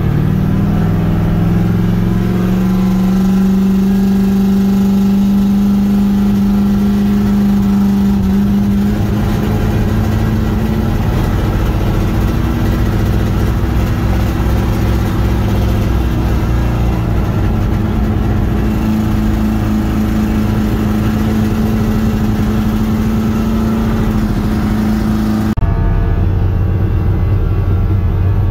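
Freshly built 13.5:1-compression LS1 V8 revving up over the first couple of seconds, then held at high revs for a long steady stretch while under load, as for a burnout. Near the end the sound drops suddenly.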